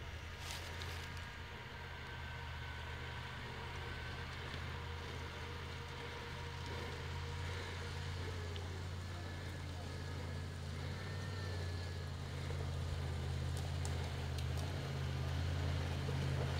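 Off-road 4x4's engine pulling steadily as it climbs a steep dirt track, a low drone that grows louder as the vehicle comes closer.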